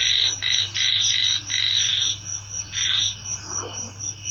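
Outdoor animal chorus: loud pulsing calls in repeated bursts that stop about two seconds in, with one more burst near three seconds, over a fast, steady chirping.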